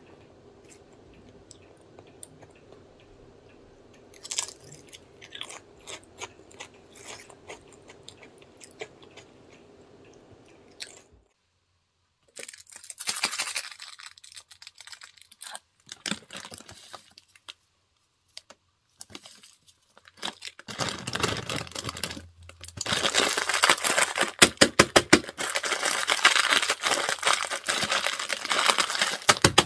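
Faint crunchy chewing of potato chips for the first ten seconds or so. After a short gap, a plastic instant-noodle packet (Shin Ramyun) crinkles as it is torn open. Then, loudest in the last several seconds, the dry noodle block is crushed by hand inside the bag with a dense crackling.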